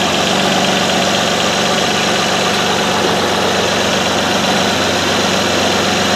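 2006 Honda Odyssey's 3.5-litre V6 idling steadily, run to circulate coolant and burp air out of the cooling system after a thermostat replacement.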